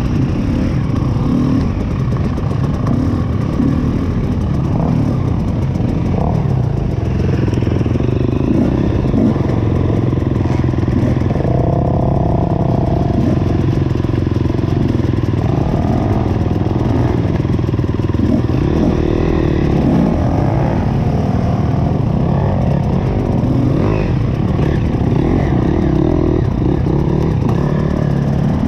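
Dirt bike engines running and revving, heard from on board the rider's own bike, with other bikes close by on the trail.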